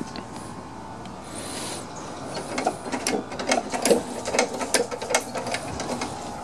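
A short aerosol hiss of penetrating oil being sprayed about a second and a half in. Then comes fast, irregular metallic clicking and rattling as the lawn mower's rusted drive linkage is worked back and forth by hand.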